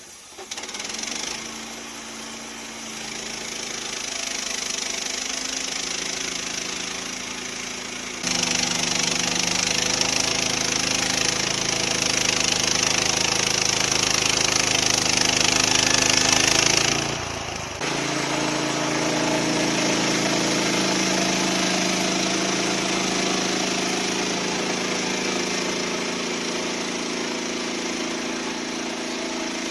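Portable sawmill's engine running under load while the blade cuts a red maple log, a steady engine note under a loud hissing cutting sound. The sound gets sharply louder about eight seconds in and dips briefly a little past halfway.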